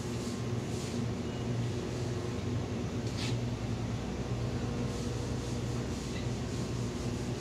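Steady mechanical hum of refrigerated glass-door freezer cases, with a brief soft hiss about three seconds in.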